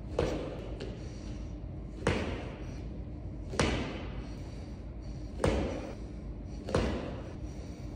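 Thuds of feet on a gym floor and weight bench during single-leg drop landings, five sharp impacts about one and a half seconds apart, each with a short echo of the large room.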